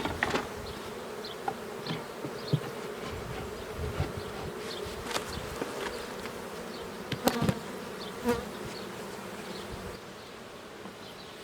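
Honeybees buzzing steadily around an opened hive, with a few sharp knocks and clicks from the hive's wooden boxes and frames being handled, the loudest about seven seconds in.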